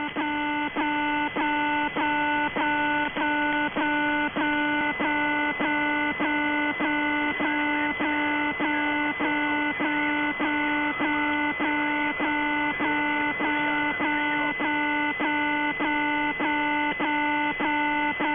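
The Alarm's channel marker received over shortwave in upper sideband: a buzzing, horn-like tone of several pitches, cut by short gaps about every 0.6 s in a steady rhythm, over radio hiss.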